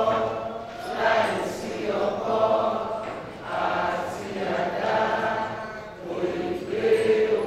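Several voices chanting together in short, repeated phrases of about a second each, led by a man at a microphone.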